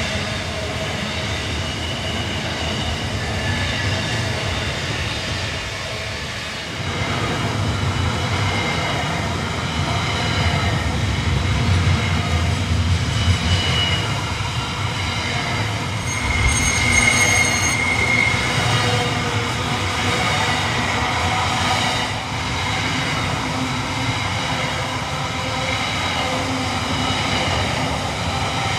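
Container freight wagons rolling past on a tight curve with a steady rumble and clatter of wheels on rail. A high, ringing wheel squeal stands out a little past halfway, from flanges grinding on the curve.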